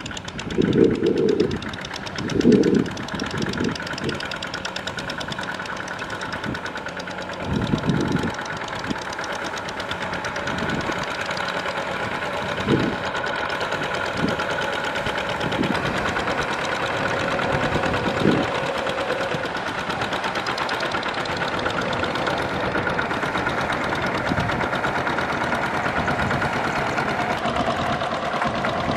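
Single-cylinder diesel engine of a Kubota two-wheel walking tractor running steadily under load with a fast, even knock, as it pulls a trailer through a flooded rice field. A few loud low rumbling bursts come in the first eight seconds.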